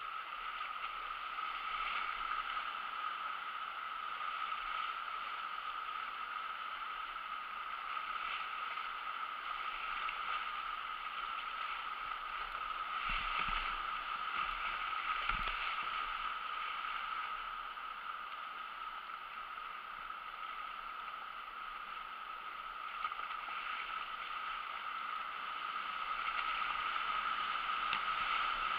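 Whitewater rapid rushing steadily around a kayak running through it, with a couple of brief low thumps about halfway through.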